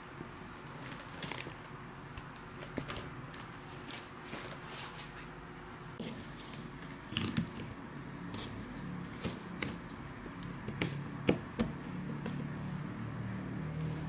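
Close handling sounds: canvas fabric organizer panels rustling, then light plastic clicks and snaps as a white foldable plastic phone stand is opened out, the sharpest clicks about seven and eleven seconds in.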